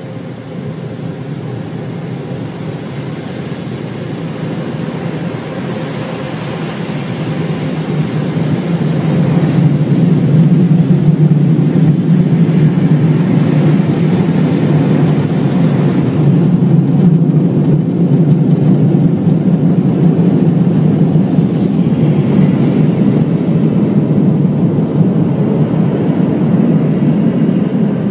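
Automatic car wash machinery running with a steady rushing noise that grows louder about eight to ten seconds in and stays loud.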